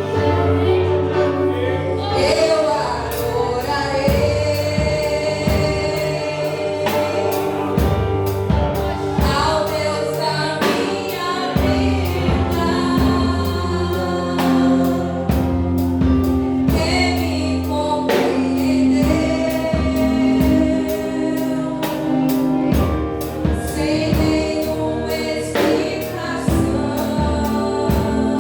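Church worship team singing a gospel song with a choir of voices over a band, with bass and a steady drum beat.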